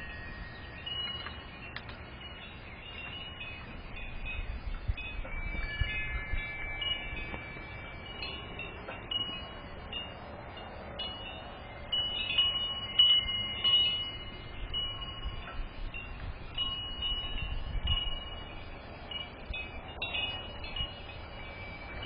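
Metal-tube wind chime ringing in the breeze, several notes of different pitch sounding on and off and ringing out.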